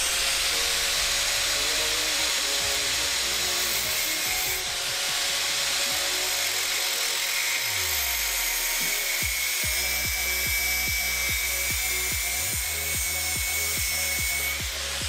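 Angle grinder cutting a stainless steel strip: a steady whine with a hiss of grinding. Electronic music plays under it, its kick-drum beat coming in about two-thirds of the way through.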